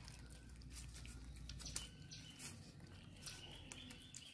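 Baby monkey chewing grilled corn kernels: faint, scattered small clicks and crunches.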